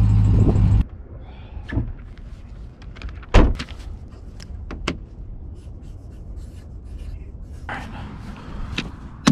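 A vehicle engine running loudly for under a second, then cut off abruptly, followed by scattered light knocks and clicks, with one sharp knock about three and a half seconds in.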